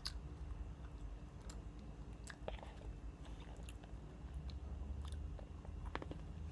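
A person chewing and biting a small snack, with scattered short crunches and clicks.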